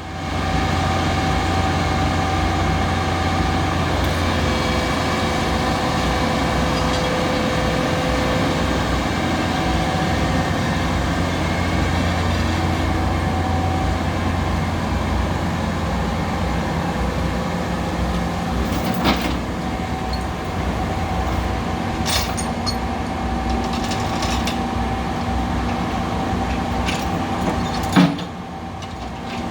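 Komatsu excavator's diesel engine running steadily under load, with a low hum and a held higher whine, and a few sharp metallic knocks later on.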